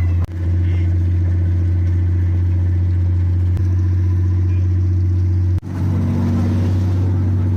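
Large diesel engine of a river passenger launch running with a steady, loud low drone. The sound cuts out for an instant twice, about a quarter second and about five and a half seconds in.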